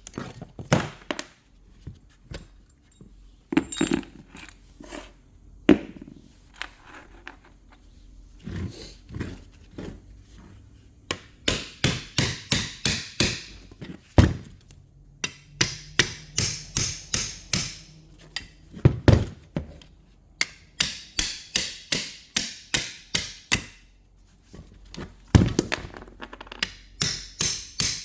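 Scattered single knocks, then repeated runs of quick, evenly spaced taps, about four or five a second, in bursts of a few seconds with short pauses between them, typical of hand work on alternator parts.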